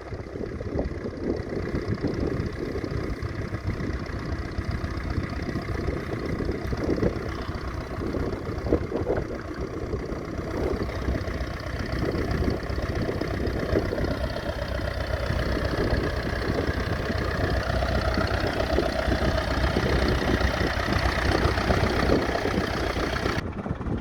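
International Harvester B275 tractor's four-cylinder diesel engine running steadily while working a plough. It gets a little louder in the second half, with a rising whine.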